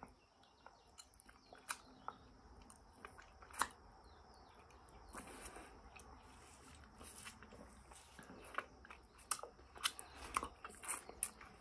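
A man chewing soft durian flesh with mouth open, with lip-smacking and finger-sucking: faint, wet, scattered clicks that grow busier toward the end.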